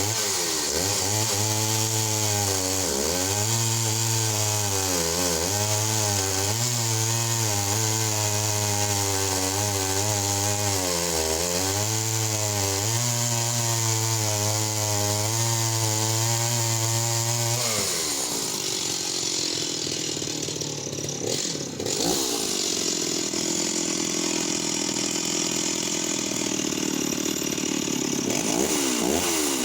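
Stihl 028AV WoodBoss two-stroke chainsaw cutting through a log at high revs, its pitch dipping again and again as the chain bites. About 18 seconds in, the steady engine note gives way to a rougher, less pitched sound. Near the end the saw revs up again.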